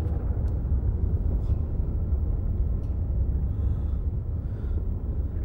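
Film soundtrack ambience of an enclosed machine-like room: a steady low rumbling drone, with a few faint clicks.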